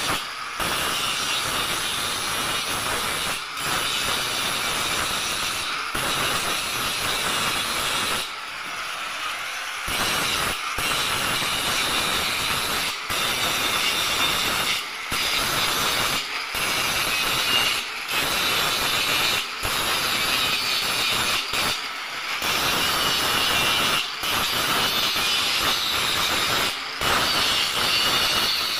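Handheld angle grinder grinding the welded iron bars of a window grill: a steady harsh metal-grinding whine, with short breaks every few seconds.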